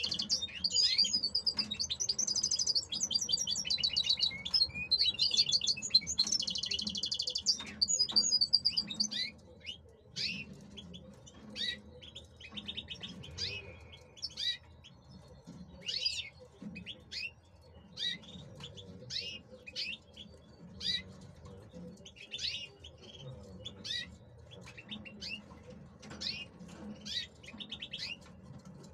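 European goldfinch (male) singing: a dense run of fast, twittering song with buzzy trills for about the first nine seconds, then only short separate chirps about once a second.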